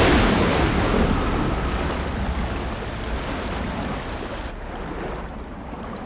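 A sudden loud rush of noise with a low rumble underneath, which starts all at once and slowly dies away over several seconds.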